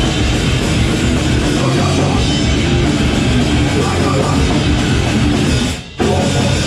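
Live hardcore punk band playing loud and dense, with distorted electric guitars, bass and drum kit. The band cuts out for a split second about six seconds in, then crashes back in.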